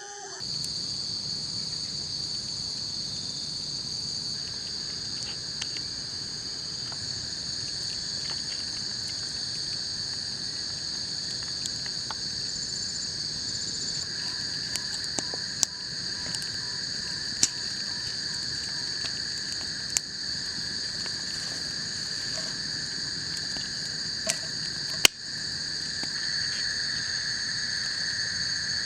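Steady chorus of insects droning at several high pitches at once, a lower-pitched voice in the chorus growing louder about halfway through and again near the end. A few sharp clicks stand out over it, the loudest about 25 seconds in.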